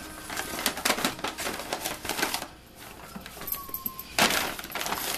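Brown paper bag crinkling and rustling in irregular crackles as the animals push and paw into it, with a louder burst of crackling near the end.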